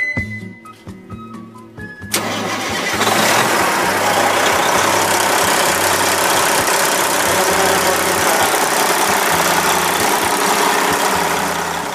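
Detroit diesel engine of a 2001 International 9200 tractor truck, running loud and steady under test. It comes in suddenly about two seconds in and fades near the end.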